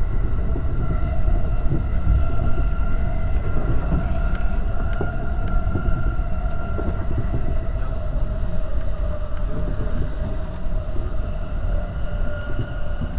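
E231-series electric train running, heard from inside the intermediate cab: a steady rumble of wheels on rail with a whine from the running gear that falls slightly in pitch as the train slows.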